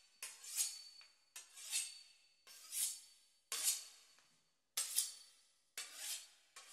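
Knife sawing through the crisp pastry crust of a beef wellington, one scratchy stroke about every second.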